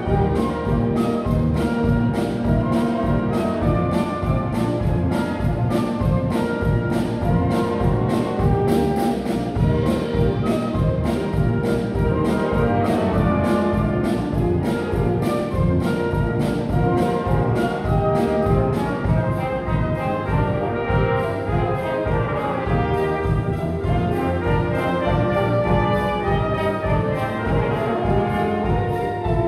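Wind band playing an instrumental passage of a Christmas children's song, brass to the fore, with a drum kit keeping a steady beat.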